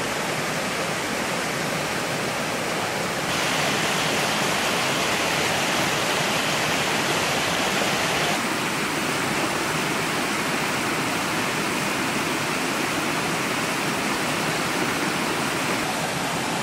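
Steady rush of a river running past the campsite, an even noisy wash of water. Its tone shifts slightly and suddenly twice, about 3 and 8 seconds in.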